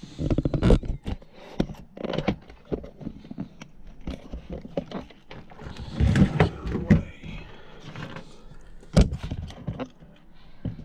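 Hand tools and parts being handled: irregular clicks, knocks and rattles, with a few louder thunks.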